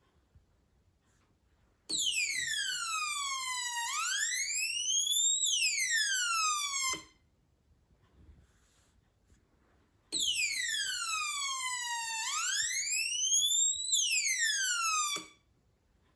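Electronic police-style siren from a homemade laser alarm and siren circuit, sounding in two bursts of about five seconds each, roughly three seconds apart. In each burst a high tone falls, rises and falls again in a wail, then cuts off suddenly.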